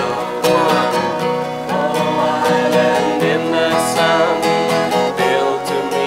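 Music: a strummed acoustic guitar with voices singing a song along with it.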